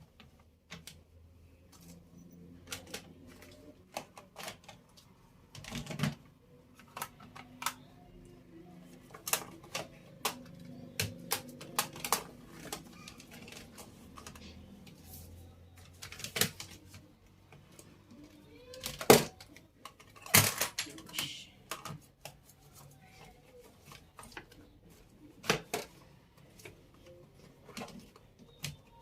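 Irregular clicks and knocks of makeup containers being handled and put down in a storage basket, with two louder knocks a little past the middle.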